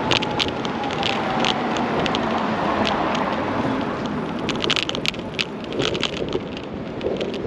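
Wheels rolling over a paved sidewalk, with a steady rush of wind on the microphone and scattered sharp clicks and rattles that come thickest about halfway through.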